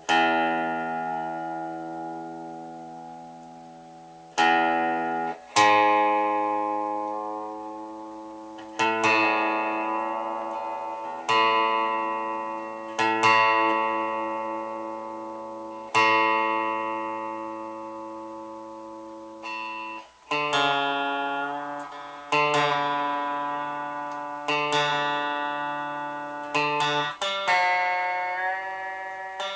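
Fender Squier Telecaster Affinity electric guitar, plugged in, having single strings plucked one at a time and left to ring out while it is tuned up, about a dozen plucks in all. The guitar is a little out of tune.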